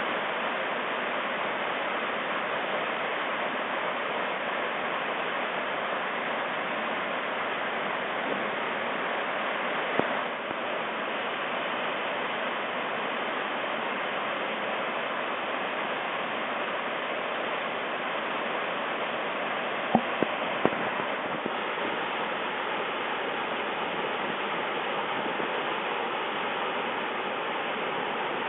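Waterfall rushing steadily, with a few brief clicks about ten seconds and again about twenty seconds in.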